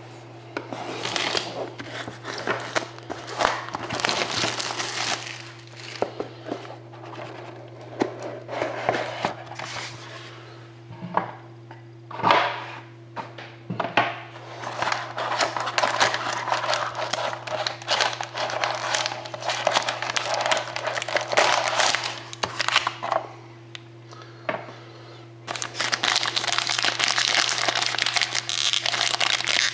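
Card-box packaging rustling and crinkling in uneven bouts, with a few sharp clicks, as a sealed Panini Dominion hockey card box is opened. Near the end comes louder, continuous crinkling as the foil-wrapped pack inside is handled.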